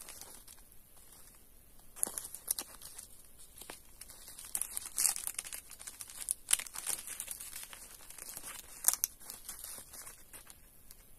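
Plastic sanitary-pad packaging crinkling and rustling as it is handled, with several sharper crackles scattered through.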